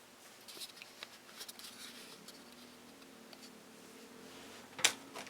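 Metal tape measure being pulled out and handled against the alarm clock: faint scrapes and a few light clicks, then one sharper click near the end.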